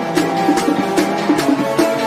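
Background music with a quick, steady percussion beat over sustained instrumental tones.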